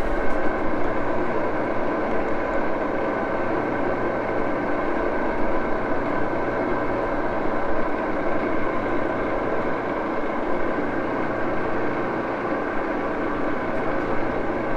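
Baby Axelson engine lathe running steadily, a constant machine hum with several steady tones over it.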